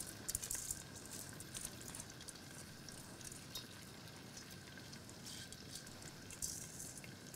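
Washed, still-wet rice dropping from a metal colander into hot melted butter and oil in a pot, sizzling faintly, with a few light ticks and scrapes as a spatula pushes the grains out.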